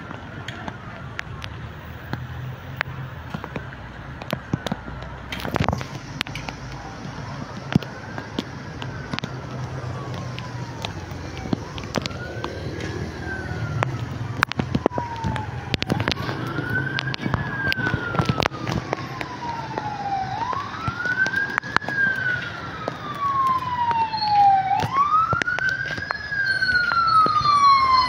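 Emergency vehicle siren wailing, each cycle a quick rise and a slower fall, repeating about every four and a half seconds and growing steadily louder as it approaches. Under it is the steady hiss of rain with scattered sharp ticks.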